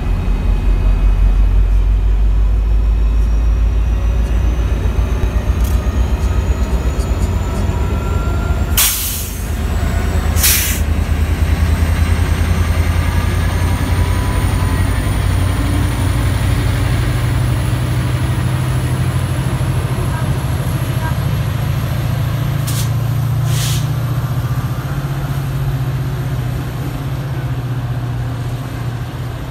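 Coaster commuter train's diesel locomotive pulling out and passing: a heavy low engine rumble with a slowly rising whine as the train gathers speed, and steel wheels on the rails. Two pairs of short hissing bursts, about nine and twenty-three seconds in, and the sound eases as the train draws away.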